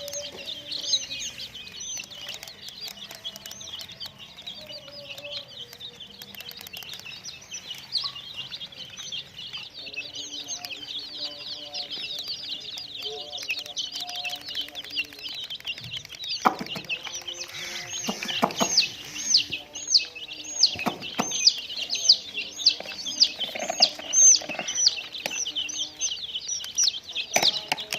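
A crowd of baby chicks peeping continuously: many short, high chirps overlapping, getting louder and more distinct in the second half.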